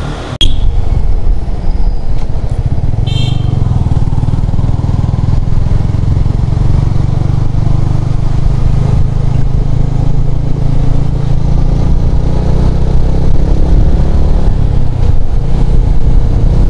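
Motorcycle running steadily on the road, heard from on the moving bike, with a loud low rumble throughout.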